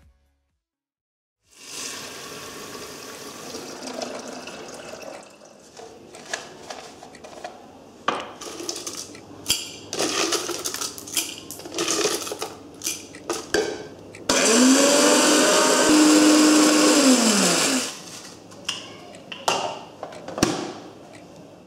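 Electric blade coffee grinder running for about three and a half seconds past the middle, its motor pitch rising as it spins up and falling as it runs down. Scattered clicks and clatter come before and after it.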